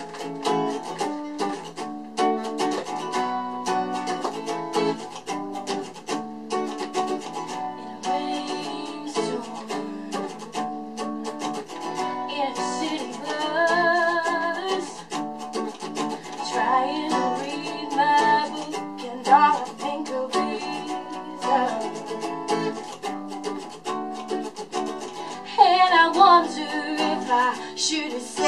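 Acoustic guitar playing a song, picked and strummed chords. A woman's singing voice comes in about halfway through, with louder phrases near the end.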